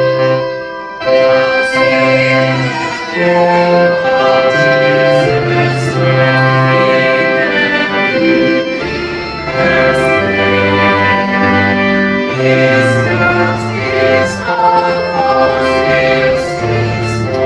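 Music: held chords that change every second or so over a bass line, with a few sharp percussive hits.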